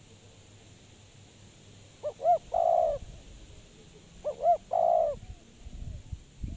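Spotted dove cooing: two calls about two seconds apart, each two quick short coos and then a longer coo. Low rumbling and a thump come near the end.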